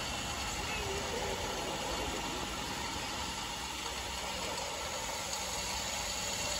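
Steady hum and hiss of idling engines, with no distinct events.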